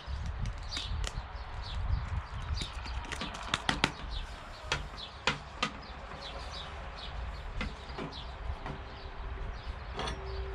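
Sharp clicks and taps from an oscillating multi-tool and its triangular sanding pad being handled, the loudest a cluster a little before the middle. Birds chirp in the background throughout with short, repeated falling chirps, over a steady low rumble.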